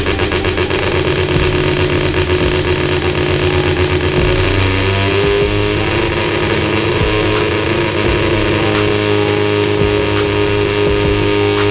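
Turbocharged half-bridge-ported 13B rotary engine of a Mazda RX-7 FD running on a chassis dyno, rough and choppy at first because it is loaded up, running rich on its new bigger injectors. About five seconds in it smooths out and its speed rises slowly.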